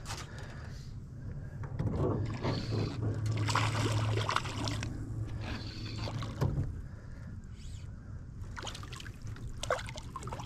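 Water splashing and sloshing beside a small boat as a landed bass is let back into the pond. The splashing is loudest a couple of seconds in, over a steady low hum.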